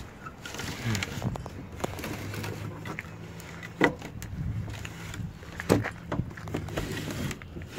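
Door window of a 1977 Ford F-150 being lowered: a steady low hum from the window mechanism, with a few sharp clicks along the way.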